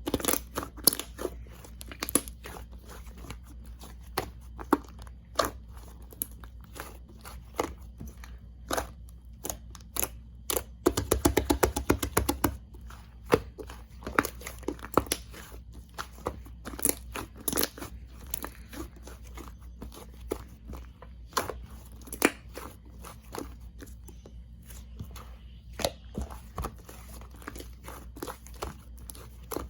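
Slime being squished and stretched by hand, making irregular sharp clicks and crackles, with a quick run of clicks about eleven seconds in.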